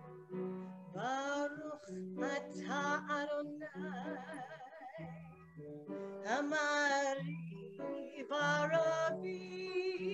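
A woman singing a slow song with vibrato, holding long notes, over a soft instrumental accompaniment.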